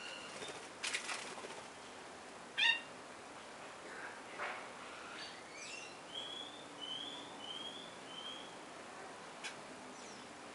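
Songbirds calling in a garden: a harsh call about a second in, a loud sharp call near the third second, then a run of four short slurred notes around the seventh and eighth seconds.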